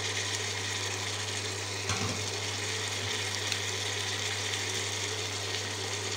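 Chopped potatoes, onions and green chilies frying in oil in a pan, a steady sizzle over a constant low electrical hum from the cooktop. A soft knock about two seconds in.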